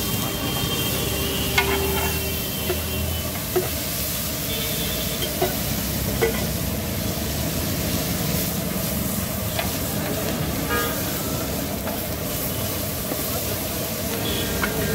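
Food sizzling on a large flat griddle (tawa) while a metal spatula chops and stirs the onion and tomato mixture. Sharp metal-on-metal clacks of the blade striking the griddle come at irregular intervals over the steady sizzle.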